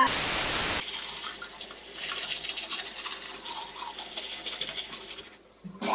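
A short burst of loud hiss opens the sound, then a toothbrush scrubs teeth in quick back-and-forth scratchy strokes for several seconds, stopping near the end.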